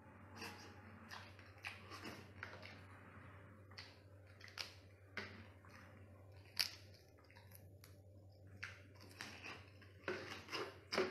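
Close-up eating of spicy river crab: wet chewing and squishing with sharp cracks and clicks of thin crab shell being broken by hand and bitten, coming in irregular bursts, thickest near the end. A steady low hum runs underneath.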